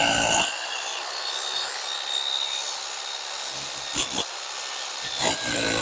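Hand tools working a concreted stone wall: scraping and grating of metal on stone and mortar, with a few sharp knocks about four seconds in and a longer scrape near the end.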